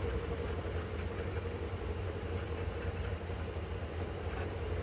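Large tailoring scissors cutting through shirt cloth along the shoulder line, over a steady low hum.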